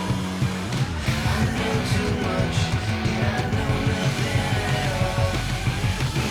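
Loud rock music with electric guitar and a driving beat.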